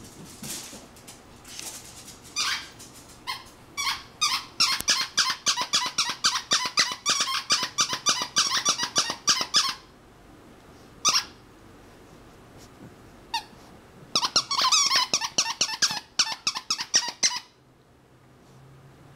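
A plush squeaky toy squeaked over and over by a dog biting on it. The squeaks come in two long runs of about three or four a second, with a couple of single squeaks between them, and stop shortly before the end.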